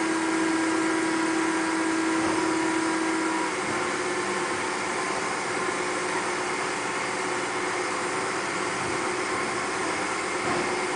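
Truck tire changer's hydraulic power unit running with a steady whining hum that stops about three and a half seconds in, leaving a constant mechanical noise.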